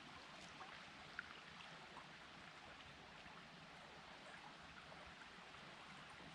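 Faint, steady rush of flowing river water, with a few small ticks and drips scattered through it.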